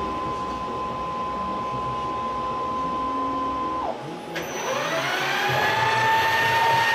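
CNC-converted PM-727M milling machine: a steady high whine that cuts off a little past halfway, then the spindle motor spinning up with a rising whine that levels off near the end.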